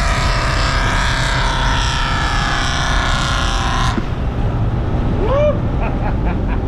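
Off-road vehicle engine running with a steady low rumble. For the first four seconds a mix of steady high whining tones rides over it, then cuts off abruptly, followed by a short rising-and-falling squeak.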